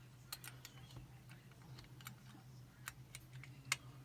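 Scattered small metallic clicks and ticks of a lock-picking wire and tension tool working inside a Chubb Detector five-lever lock, the loudest about three and a half seconds in, over a faint steady hum.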